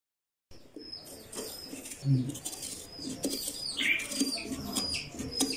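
Small birds chirping over and over with short high chirps, joined by lower cooing, plus scattered clicks and scrapes from a squash being hollowed out. The sound starts abruptly about half a second in.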